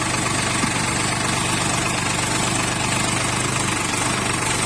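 Sonalika 45 HP tractor's diesel engine running steadily at a low, even speed, with a constant throb.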